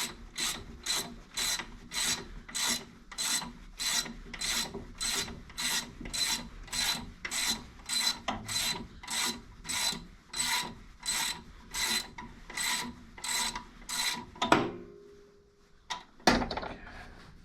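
Pittsburgh hand ratchet clicking on its back-swings, about two strokes a second, as a bolt is loosened; the owner calls the worn ratchet questionable. Two sharp knocks follow near the end.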